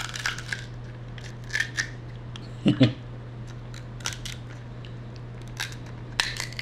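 Cooked king crab leg shell being cracked and snapped apart by hand: a scattered series of sharp crackles and snaps, with a short low vocal sound just under three seconds in.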